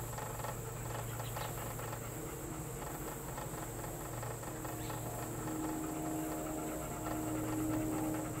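Electric trolling motor running with a steady low hum; a higher whine grows stronger about five seconds in. A steady high-pitched buzz of insects runs underneath.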